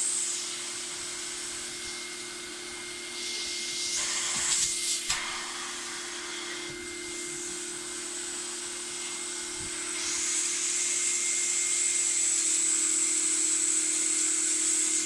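Extraction vacuum running as its upholstery hand tool is drawn over a mattress: a steady motor hum under a suction hiss. The hiss swells briefly about four seconds in and grows louder from about ten seconds in as the tool moves over the fabric.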